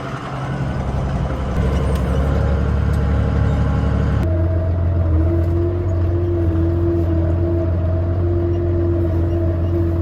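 Case IH 5250 Maxxum tractor's diesel engine running under load, picking up about a second in. A little after four seconds the sound changes abruptly to a steady low drone with a held whine over it.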